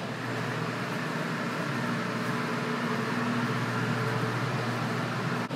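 Steady mechanical hum of the hydroponic container farm's running equipment, its always-on water circulation pump and air handling, holding level with a faint low drone.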